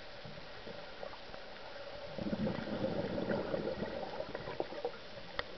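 Scuba diver's exhaled bubbles from the regulator, heard underwater through the camera housing: a burst of bubbling starts about two seconds in and lasts a couple of seconds over a steady underwater hiss.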